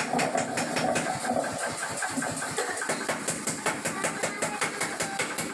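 A machine running with a fast, even knocking, several knocks a second, steady throughout.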